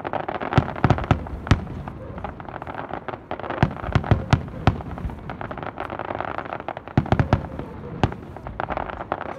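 Aerial firework shells bursting in a display: a run of sharp, irregular bangs, some in quick clusters, over a steady rushing noise between them.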